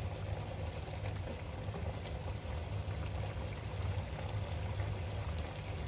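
Fish pieces with herbs and tomato cooking in an aluminium pot, giving a steady bubbling, sizzling hiss as a wooden spoon moves them, over a low steady hum.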